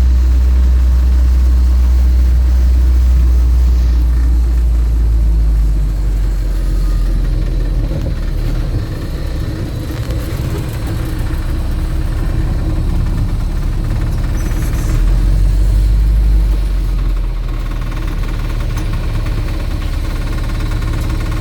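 UAZ off-road vehicle's engine running steadily with a deep low drone, easing off about six seconds in and swelling again briefly around fifteen seconds.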